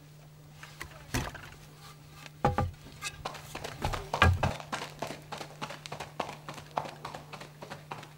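A horse's hooves clip-clopping at a walk: a run of irregular sharp knocks, several a second.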